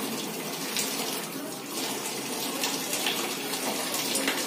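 Tap water running steadily into a plastic tub of water, with small splashes as a cat is soaked in it.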